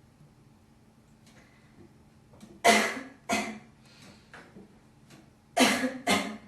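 A girl coughing: two pairs of loud, sharp coughs about three seconds apart, the first pair a little over two seconds in.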